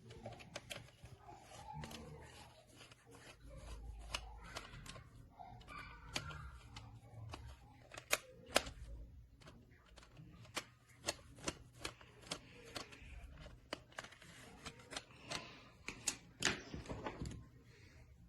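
Batteries being fitted into a plastic RC remote control's battery compartment: faint, irregular sharp clicks and taps with soft handling rustle between them.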